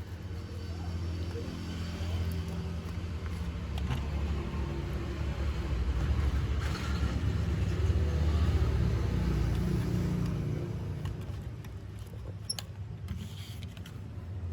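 Low vehicle engine rumble that swells to a peak about eight seconds in and then fades, with a few faint clicks.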